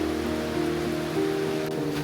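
Soft background music of held notes that change every half second or so, laid over a steady hiss of rain falling.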